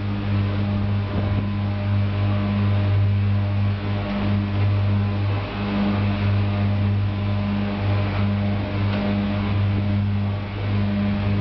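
A machine running steadily with a deep, low hum and a fainter higher overtone, with a few faint knocks over it.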